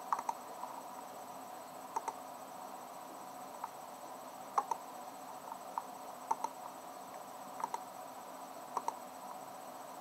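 Computer mouse buttons clicking now and then, a dozen or so short sharp clicks, some as quick double clicks, over a steady background hiss.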